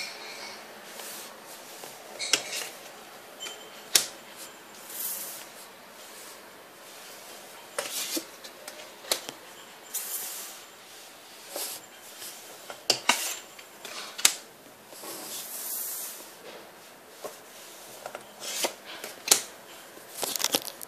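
Trading cards and fingers handled on a wooden tabletop: irregular sharp taps and clicks, with short rustling scrapes in between.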